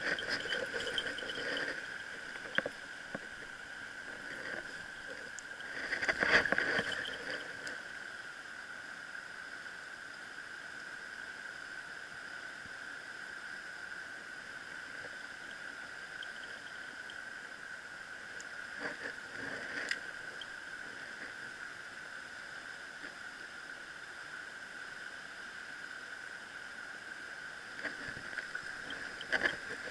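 Rushing water of a shallow mountain river's rapids, with a steady high-pitched whine running under it. Brief louder handling noises come about six seconds in and again around twenty seconds.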